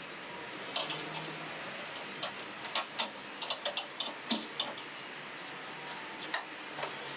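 Hand tools clicking and clinking against metal: a dozen or so short, sharp taps at irregular intervals, starting about a second in.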